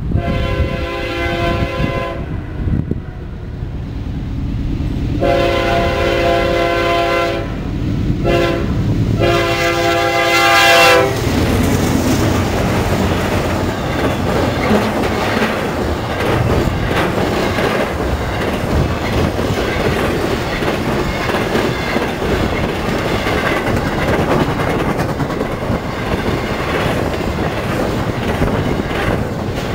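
A freight locomotive's air horn blows four blasts, long, long, short, long: the standard signal for a grade crossing. From about eleven seconds in, the intermodal train's cars, carrying road trailers and double-stack containers, roll past with steady wheel clatter.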